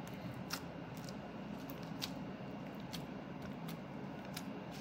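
Clear glitter slime packed with foam beads being kneaded and squeezed by hand, giving a faint wet working sound with a handful of sharp crackling clicks as the beads pop and shift.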